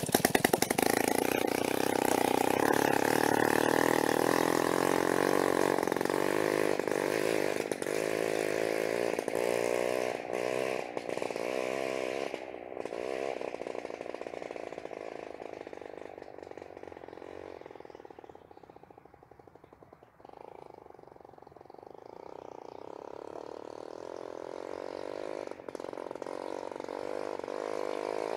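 Peugeot 103 Vogue moped's single-cylinder 50 cc two-stroke engine running with no exhaust pipe, a harsh, rasping sound. It is loud as the moped pulls away, wavers in pitch as the rider works the throttle, fades into the distance, and grows louder again in the last few seconds as it heads back.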